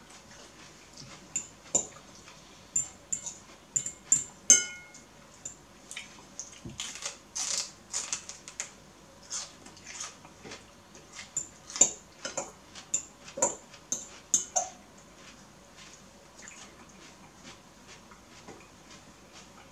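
Metal fork clinking and scraping against a bowl of noodles in irregular taps, with one ringing clink about four and a half seconds in; the taps thin out after about fifteen seconds.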